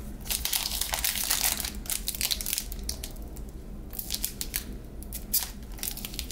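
Foil wrapper of a Panini Revolution basketball card pack being torn open by hand, crinkling and ripping in bursts, with a short lull about three seconds in.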